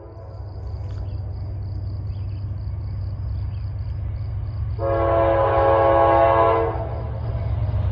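Approaching Norfolk Southern diesel freight locomotives, a four-unit lash-up led by a GE Dash 9, rumbling low and steadily and growing louder. About five seconds in, the lead locomotive's air horn sounds one long blast of about two seconds.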